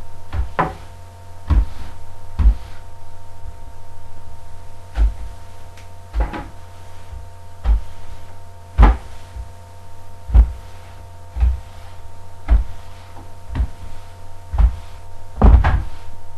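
Broom sweeping a kitchen floor: irregular knocks and thuds, roughly one a second, as the broom strikes the floor, over a steady low hum.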